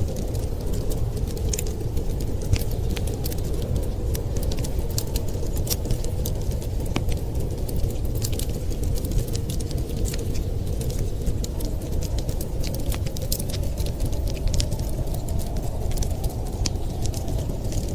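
Wood fire crackling, with frequent small irregular pops and snaps over a steady low rush of blizzard wind.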